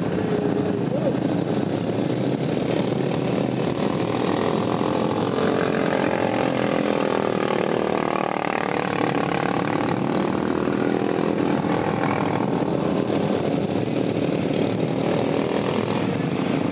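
Racing lawn mower's engine running hard as it laps a dirt track, its pitch rising as it comes close about halfway through and falling away as it moves off.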